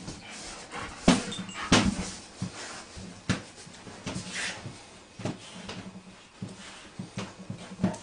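Mother dog and her puppy playing on the floor: about five sharp knocks and bumps, with softer dog sounds between them.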